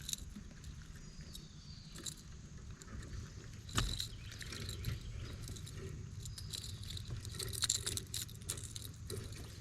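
Light rain pattering on a kayak: scattered small ticks over a low steady rumble, with one louder knock about four seconds in.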